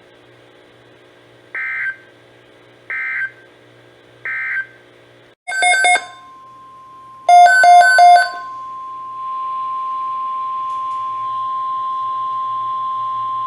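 NOAA Weather Radio alert signalling. First come three short buzzy data bursts, the end-of-message codes closing the previous warning. Then, about six seconds in, two louder, harsher bursts of tones and the long, steady single-pitch warning alarm tone that runs on, announcing the next alert. A faint hum sits underneath.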